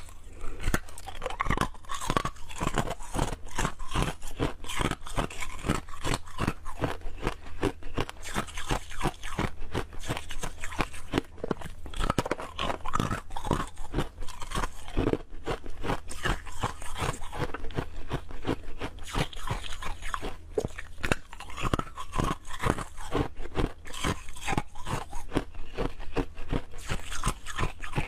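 Ice cubes bitten and chewed close to clip-on microphones: a continuous run of sharp crunches and cracks, several a second, over a steady low hum.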